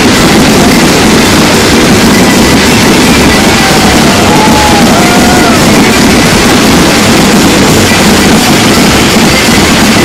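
Fireworks barrage: a dense, unbroken mass of overlapping bangs and crackling, loud enough to overload the microphone, with a few short whistles near the middle.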